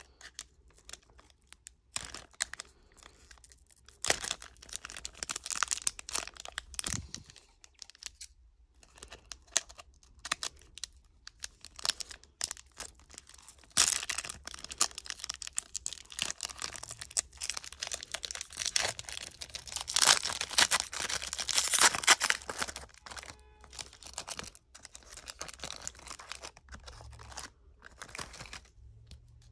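Foil trading-card pack wrappers being crinkled and torn open by hand, in a long run of papery crackles and rips. The crinkling is loudest through the middle of the stretch.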